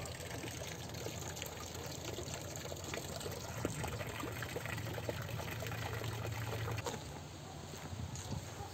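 Water trickling and splashing steadily over the concrete rim of an outdoor plunge pool into the basin below, growing fainter about seven seconds in.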